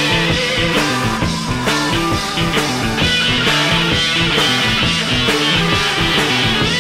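Rock music with guitars and a steady beat.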